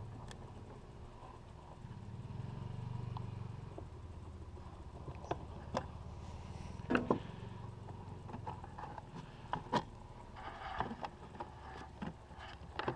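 A low rumble, like a vehicle going by, swells and then fades out about eight seconds in. Through the second half come scattered clicks and knocks of hand-tool and panel handling, with a short scrape near the end.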